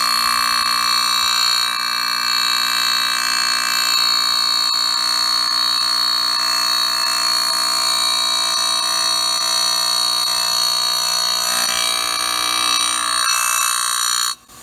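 Grinding wheel, form-dressed by crush dressing, cutting a spline groove in a hardened (Rockwell 57) steel tractor shaft: a loud, steady, shrill screech with several held high tones. It stops abruptly just before the end.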